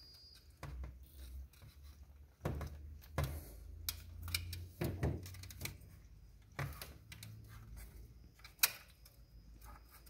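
Scattered light plastic clicks and knocks as a refrigerator's fan motor housing is handled and its wires are fitted, over a faint low rumble.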